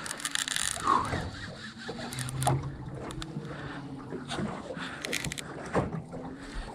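Irregular clicks and knocks of rod, reel and gear being handled in a small fishing boat while a fish is being fought, over a low hum that comes and goes.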